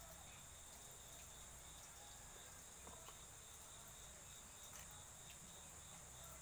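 Near silence with a faint, steady high-pitched insect drone.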